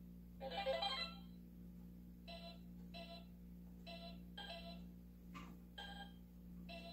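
A handheld electronic memory game with a four-colour ring being played, giving a string of short electronic beep tones, about ten, each a fraction of a second long and spaced irregularly, at differing pitches.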